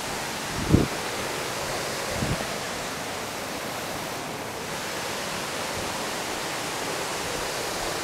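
Steady rushing of water pouring over an old mill dam spillway, with two dull thumps about a second and two seconds in.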